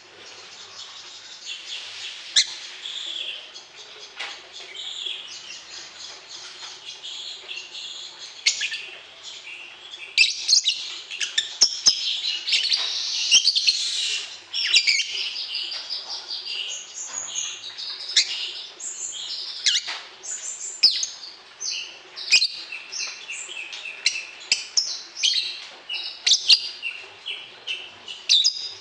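Songbird song: a dense stream of rapid, high chirps, trills and whistles, busiest about a third of the way in, played as a training recording to draw a response from a young caged songbird.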